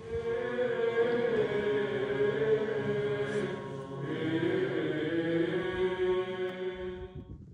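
Orthodox church chant: slow sung phrases on long-held notes, two phrases with a brief break about four seconds in, stopping just before the end.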